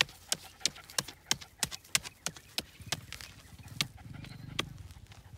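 Wooden stick jabbing repeatedly into hard earth to dig open a covered fire pit: sharp knocks about three a second, thinning out after about three seconds. A low steady hum comes up in the second half.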